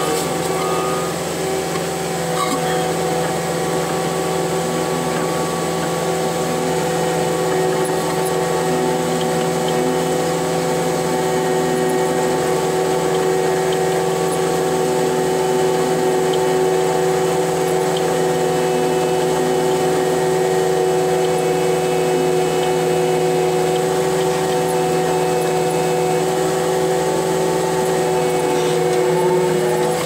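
Cat 289D3 skid steer's diesel engine and hydraulics running steadily at working revs, a constant hum with several fixed tones, heard from inside the cab while the dozer blade pushes dirt.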